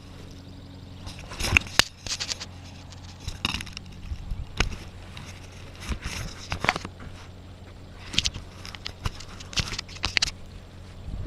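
Scattered sharp clicks, knocks and short scrapes over a steady low hum.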